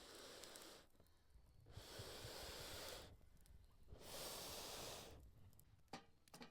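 Three long puffs of air blown onto a campfire, each about a second long with a pause between them, and a few small crackles from the fire near the end.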